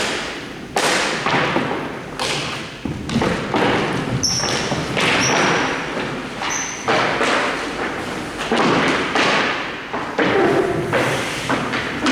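Hockey play echoing in a large hall: a steady run of sharp thuds and knocks, as of a puck and sticks striking boards, with three brief high squeaks in the middle.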